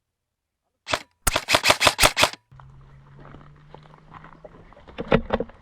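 Airsoft gun shots: after about a second of dead silence, one sharp shot, then a rapid string of about eight shots, and two or three more shots near the end.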